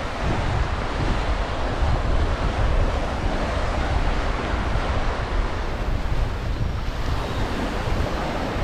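Ocean surf washing onto a sandy beach, a steady rush of waves, with wind rumbling and buffeting on the microphone.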